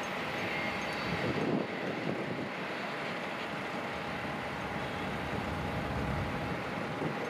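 BNSF diesel locomotive running as it leads a train of covered hopper cars slowly past, the engine and wheels on rail making a steady noise with a faint steady whine above it.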